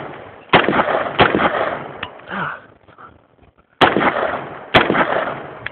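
AR-15 rifle firing single shots: two sharp cracks about half a second apart near the start, a pause, then two more around four and five seconds in, each with a short echoing tail.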